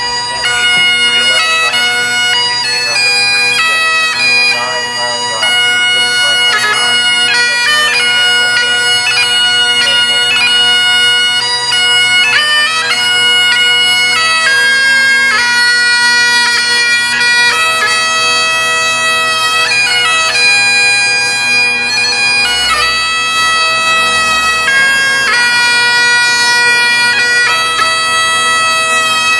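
Great Highland bagpipe played solo: a melody of held notes joined by quick grace-note flourishes, over the steady drones.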